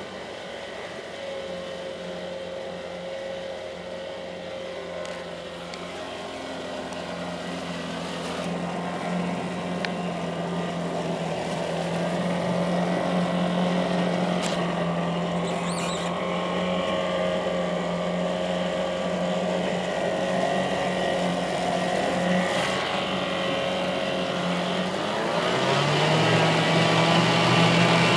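1973 Evinrude 4 hp Yachtwin twin-cylinder two-stroke outboard running in a test barrel, its propeller churning the water. It runs steadily and grows gradually louder, then picks up speed a few seconds before the end.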